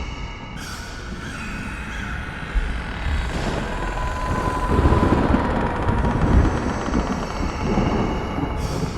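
Rolling thunder rumble under a spooky sound-effect ambience with a few steady eerie tones. The rumble builds about three and a half seconds in and is heaviest in the middle.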